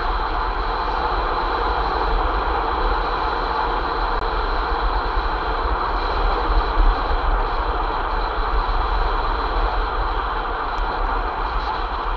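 Steady rush of wind on the microphone and road noise from a vehicle travelling along a road, with a deep rumble underneath, unchanging throughout.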